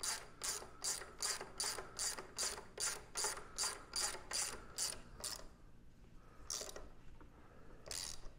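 Hand socket ratchet tightening a headlight clamp bolt: a quick, even run of ratcheting strokes, about two and a half a second, each a short burst of pawl clicks, then two slower single strokes near the end.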